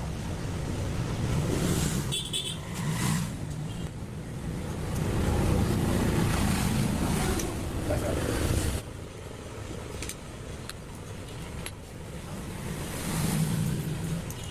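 Motor vehicle noise with some background voices. It runs loudest in the middle, drops off abruptly about nine seconds in, and a few light clicks follow.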